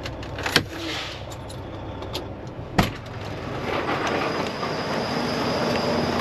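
Two sharp knocks about two seconds apart over a low rumble. The rumble drops away after the second knock, and a louder, even rushing noise builds after it.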